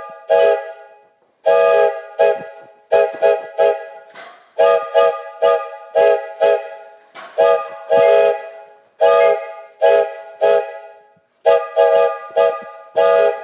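Five-chime aluminum train whistle blowing a rapid run of short toots and longer blasts, each sounding as a single steady chord of several tones.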